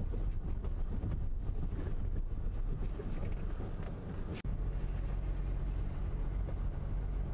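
Steady low rumble of a car driving, heard from inside the cabin. About four and a half seconds in there is a sharp click and a brief dropout, after which a low, steady hum sits under the rumble.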